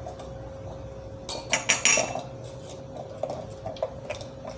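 Kitchen utensils clinking: a spoon knocking against dishes, with a quick cluster of sharp, ringing clinks about a second and a half in and a few lighter clicks near the end.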